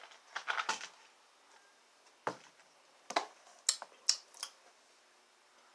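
A person drinking a fizzy Pepsi-and-milk mix from a plastic cup: a short run of quiet sips and swallows, then several separate short clicks over the next couple of seconds, mouth and cup sounds as she tastes it.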